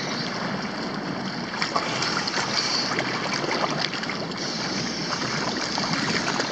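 Choppy sea water splashing and lapping close to the microphone, with rain falling on the surface: a steady wash of water noise dotted with many small splashes and drips.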